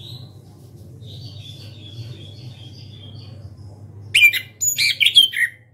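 Chestnut-capped thrush (anis kembang) singing: a soft, high twittering warble, then about four seconds in a burst of loud, sharp, varied notes.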